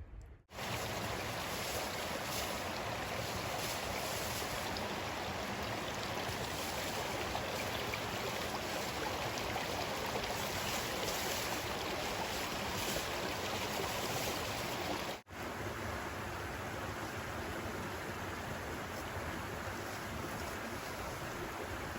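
Steady rushing outdoor noise with no distinct events, cutting out abruptly for a moment about half a second in and again about fifteen seconds in.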